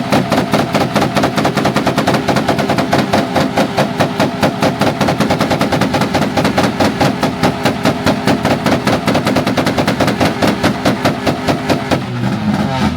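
Car engine held on a two-step launch-control rev limiter, the exhaust popping and banging in a rapid, even machine-gun rhythm of several pops a second, cutting off about 12 seconds in.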